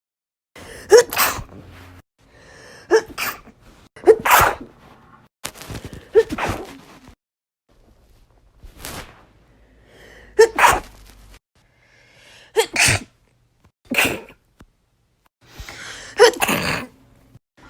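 A run of human sneezes, about eight or nine of them, each a short sharp burst, coming one to two seconds apart with brief quiet gaps between.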